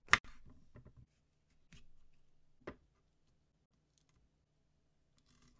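Raw red bell pepper being cut open and deseeded on a wooden cutting board: one sharp crunch right at the start, then softer crackling, another crisp snap about two and a half seconds in, and a faint crackle near the end.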